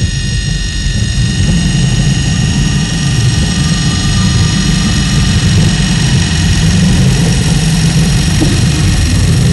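Live electronic drone music: a loud, dense low rumble with many steady high tones held above it, like jet-engine noise, swelling slightly in the first couple of seconds.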